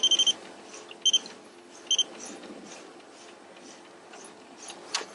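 Electronic beeping: a steady high beep at the start, then two short beeps about a second and two seconds in. After that only a faint wash of noise, with one sharp click near the end.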